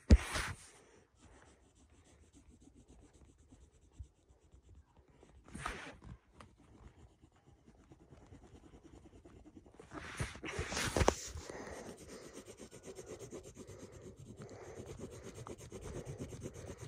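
Graphite pencil shading on paper, picked up by a phone lying face down on the table. A few scattered rubs and a louder rub about ten seconds in, then steady rhythmic back-and-forth scratching as an area is filled in dark.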